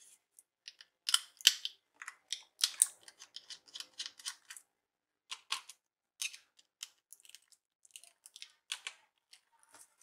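Irregular small clicks and metallic taps from a laptop hard disk and its metal side holders being handled and unscrewed, busiest in the first half.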